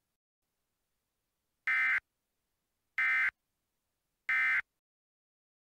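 Emergency Alert System End of Message signal: three short bursts of buzzy digital data tone, about a second apart, marking the end of an alert message.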